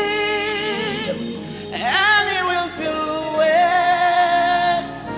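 Gospel worship song: a male lead vocalist sings long, drawn-out notes with vibrato over keyboard accompaniment, sweeping up to a higher phrase about two seconds in and holding a long note in the second half.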